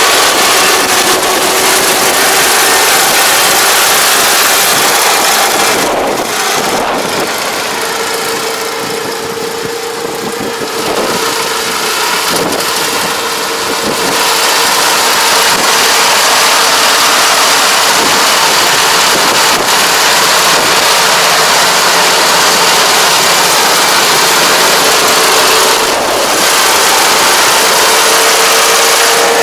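Kubota ER587 combine harvester running under load while cutting and threshing rice, a dense, steady machine noise with a constant whine. It drops somewhat about a third of the way in as the machine moves off, then grows loud again as it comes back close.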